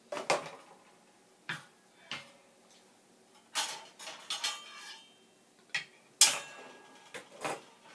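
Stainless-steel air fryer accessories (a rotisserie basket and a non-stick drip tray) clinking and knocking against each other and the table as they are handled. The knocks are scattered and some ring briefly, with the loudest clank about six seconds in.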